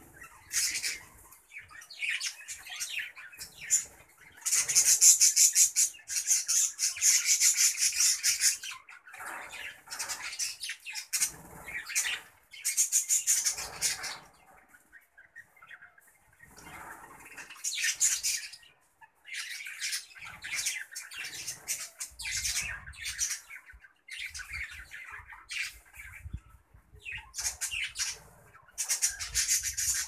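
Budgerigars chattering and squawking in bouts of fast, scratchy trills, with short pauses between the bouts.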